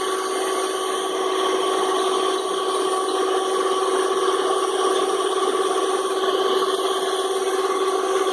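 Electric mixer's motor running steadily with a constant whine as its twin metal beaters churn cookie batter.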